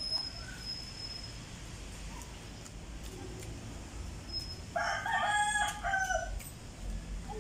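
A rooster crowing once, a single cock-a-doodle-doo of about a second and a half, starting a little past the middle.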